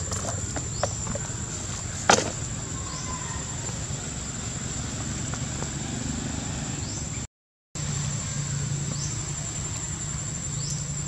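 Outdoor forest ambience with a steady, high-pitched insect drone and a low hum underneath, a single sharp click about two seconds in, and a few faint short chirps. The sound cuts out briefly around seven seconds, then the same drone resumes.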